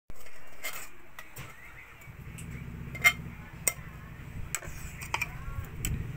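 Kitchen utensils and dishes clinking in scattered sharp clicks, the loudest about three seconds in, over a low hum that starts about two seconds in.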